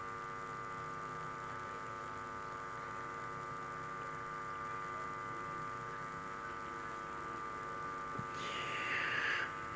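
Steady electrical hum from the microphone and PA sound system, made of many even, unchanging tones. Near the end a short hiss, the reciter drawing breath into the handheld microphone before the next verse.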